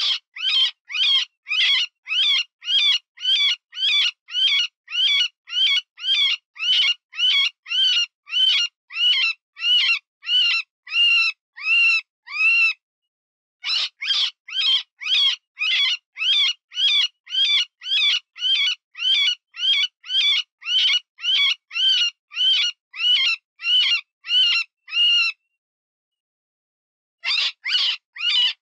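Cottontail rabbit distress call used as a predator lure: the wounded-rabbit squeal repeated about twice a second in long runs, with a brief break midway and a pause of about two seconds near the end before it starts again.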